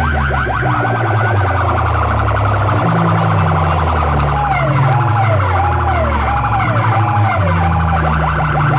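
Loud DJ sound-box system playing a dance track with a heavy stepping bass line and siren-effect sweeps. Fast short siren warbles at the start give way to slower rising-and-falling siren swoops from about the middle.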